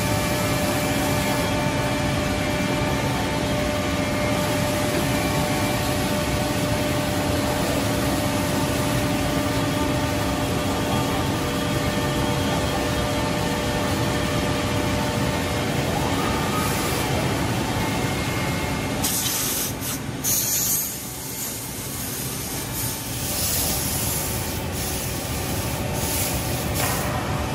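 Anderson PTP-3013 CNC machining centre working a wood panel: the spindle runs with a steady whine over the noise of cutting and the machine's motion. About two-thirds of the way through the sound shifts, with short bursts of high-pitched noise.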